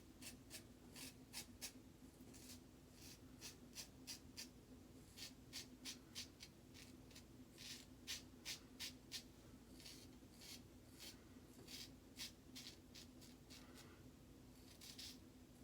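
Faint scratching of an Autostrop safety razor's blade scraping through lathered stubble: many short, quick strokes, sometimes two or three a second, with short pauses between runs.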